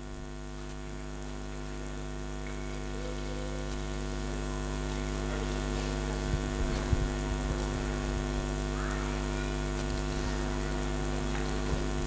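Steady electrical hum and buzz from the hall's sound system, slowly getting louder, with a few faint knocks a little past halfway.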